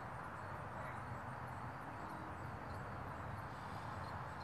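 Quiet outdoor background: a steady low hiss and hum, with a few faint, short high chirps.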